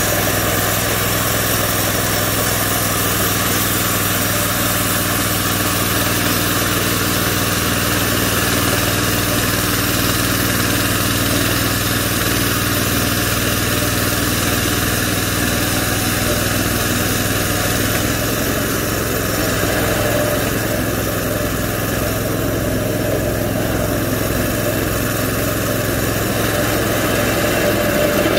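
Small gas engine on a homemade bandsaw mill running steadily, with the band blade turning, as the mill head travels along its track. The pitch shifts slightly about two-thirds of the way through.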